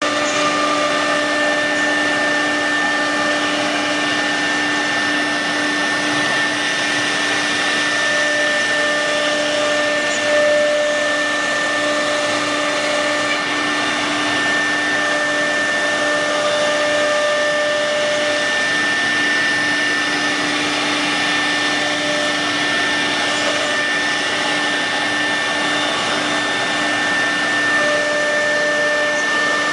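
CNC nesting router cutting melamine-faced particleboard: a steady high spindle whine over a rushing noise of cutter and dust extraction, with a lower tone that comes and goes.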